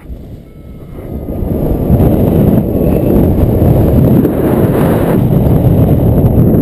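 Wind rushing across the camera microphone during a paraglider flight in strong, turbulent air: a low, even rumble that swells from faint to loud over the first two seconds and stays loud.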